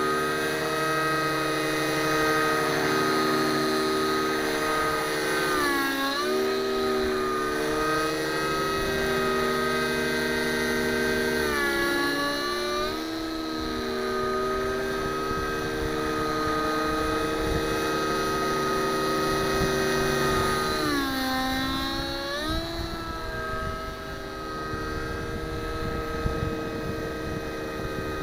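Nitro-powered RC helicopter with an O.S. glow engine flying overhead: a steady, high-pitched whine of engine and rotors. The pitch drops briefly and recovers a few times as it manoeuvres.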